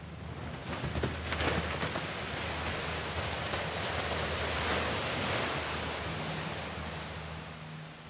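Small waves breaking and washing up a beach: a rush of surf that builds about a second in, swells, and fades away near the end, with a low steady hum underneath.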